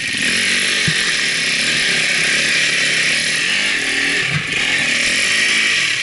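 Enduro dirt bike engine revving hard under load on a steep climb, its pitch rising and falling again and again, with a loud rasping hiss over it.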